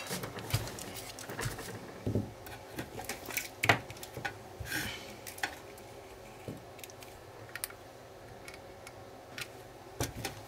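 Light clicks and knocks of a circuit board being handled, turned over and set down on a bench, with a few scattered taps; the clicks are densest in the first half and thin out after.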